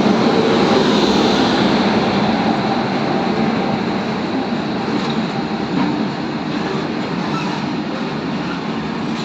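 Train passing close by, with a steady rumble and rattle of its wheels on the track that slowly grows quieter.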